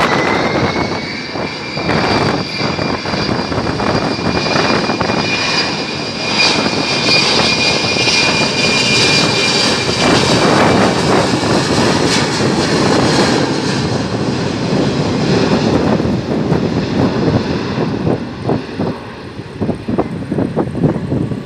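Embraer E-195 jet's twin GE CF34 turbofans at take-off power: a loud roar with a steady high whine that fades out about halfway through, then the roar slowly dies away. Wind gusts buffet the microphone.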